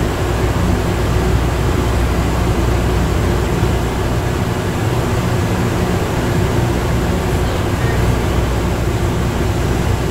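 Plane Train automated people mover, a rubber-tyred car, running steadily along its tunnel guideway, heard from inside the car as a constant low rumble and hum.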